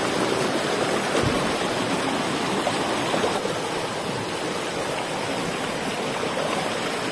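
Shallow rocky stream rushing over stones, a steady wash of running water.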